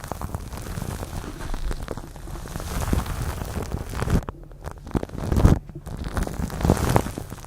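Close-miked ASMR trigger sounds: dense crackling and rustling with many small clicks.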